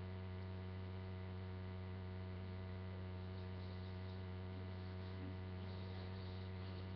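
Steady electrical mains hum: a low, even buzz with a ladder of overtones that does not change.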